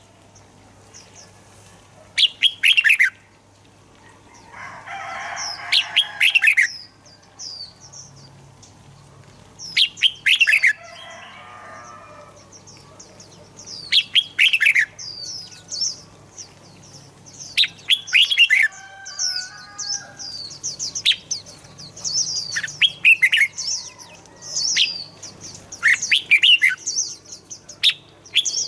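Red-whiskered bulbuls singing: loud, short whistled phrases that sweep downward come every few seconds over a busy chatter of higher chirps. There is a brief rustle about five seconds in and again about eleven seconds in.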